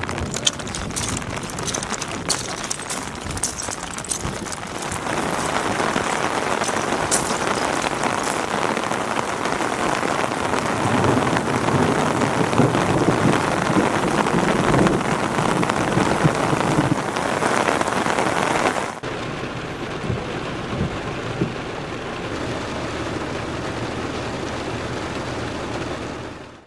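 Heavy rain falling, with the patter of individual drops, growing heavier a few seconds in and then dropping suddenly to a lighter level near the end.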